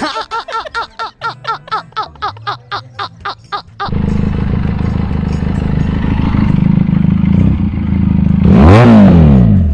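A man laughing hard in rapid 'ha-ha' pulses, about five a second, for roughly four seconds. Then a Benelli Leoncino 500's parallel-twin engine idling steadily, with one quick throttle blip, rising and falling back, near the end that is the loudest sound.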